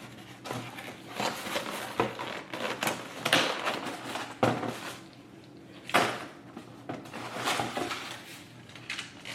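Scattered clicks, knocks and rustles of food containers and utensils being handled and moved about after a meal.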